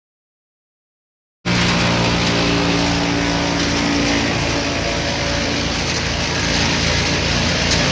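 Gas-engine wood chipper running loudly and steadily. It cuts in abruptly about a second and a half in, after dead silence.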